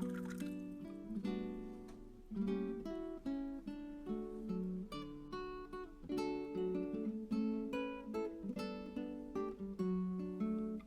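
Background music of acoustic guitar, plucked notes in a gentle fingerpicked pattern.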